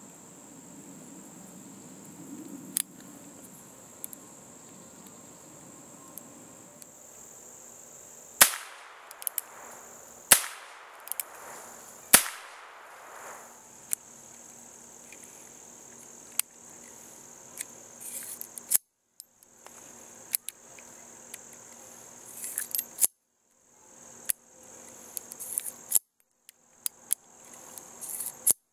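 Three sharp shots from the Western Six .22 LR single-action revolver, about two seconds apart, each with a short echo. Lighter metallic clicks of the revolver being handled come before and after, over a steady chorus of crickets.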